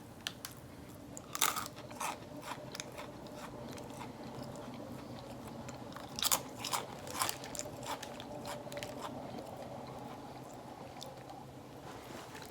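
A person chewing crunchy chili lime stick crackers: scattered sharp crunches, bunched around two seconds in and again from about six to nine seconds in, over a faint steady hum.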